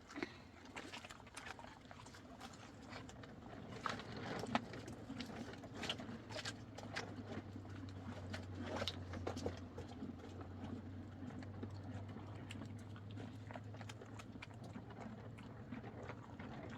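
Donkey's hooves clip-clopping irregularly on hard ground, a scatter of sharp knocks, with a low steady hum underneath through the middle.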